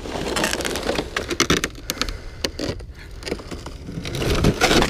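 Crunching footsteps and an ice-fishing sled dragged over a pressure ridge of broken lake ice, scraping and knocking against the ice chunks, louder near the end.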